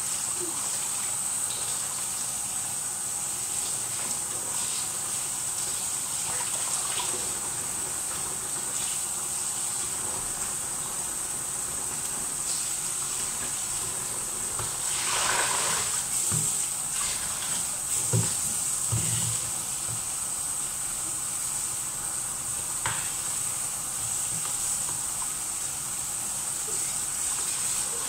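Kitchen tap running into a steel sink while raw chicken pieces are washed by hand under the stream, with scattered light knocks and splashes. A louder gush about halfway through.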